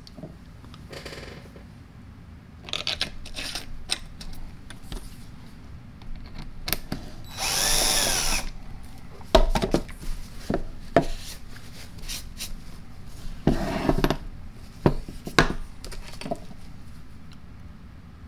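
Cordless screwdriver with an adjustable clutch running in a short burst of about a second, its pitch rising and falling, as it runs a body screw into an air impact wrench's housing without tightening it. Sharp clicks and knocks of screws and tools being handled come before and after.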